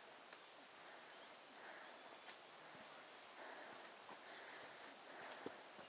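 Faint outdoor ambience with an insect trilling: a high, thin trill repeating in stretches of about half a second to a second with short gaps between them. A soft tap sounds near the end.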